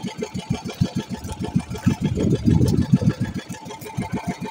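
Small fishing-boat engine running at low speed with an even, rapid low putter, louder and denser for about a second two seconds in.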